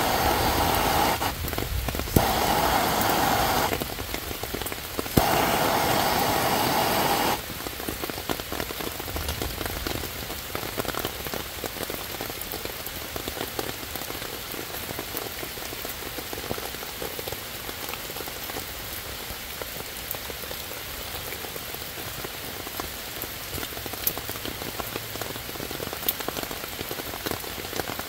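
Handheld gas torch burning with a steady flame noise, cutting out briefly twice and relighting with a click, then shut off about seven seconds in. After that, steady rain falling on wet ground and leaves.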